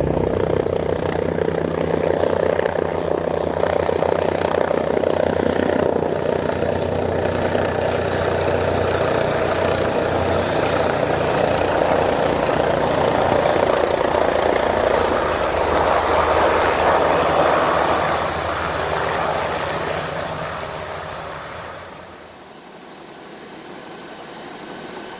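Agusta Caweel CW-95 helicopter sound effect: engine and rotor running steadily with a thin high whine. It fades away about three quarters of the way through, then builds a little again near the end.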